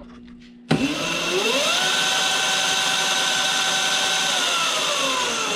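Highboy DK1 electric dirt bike's motor driving the chain and rear wheel. It starts abruptly under a second in, whines up in pitch and holds steady over the noise of the spinning chain, then winds down near the end as it coasts.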